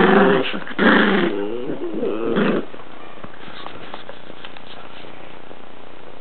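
Chinese Crested dog growling over a chew ear in three bursts within the first two and a half seconds, then only faint light clicks.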